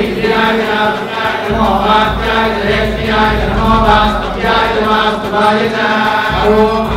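A man chanting a Hindu mantra into a microphone, amplified over a PA, in short melodic phrases that rise and fall in pitch.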